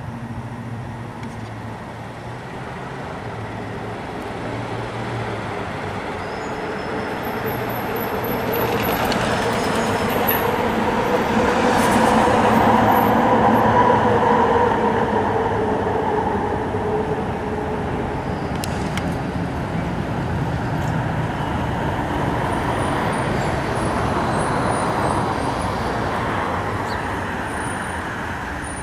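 Street traffic: a car drives past close by, the sound swelling to its loudest about halfway through and then easing off, with a steady hum at its loudest.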